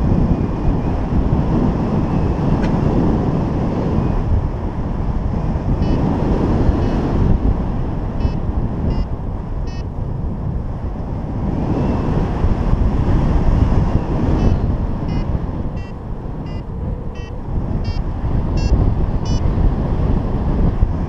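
Wind rushing over the microphone of a paraglider pilot's action camera in flight: a heavy, low buffeting that swells and eases every few seconds. From about six seconds in, faint short high beeps come in quick runs over it.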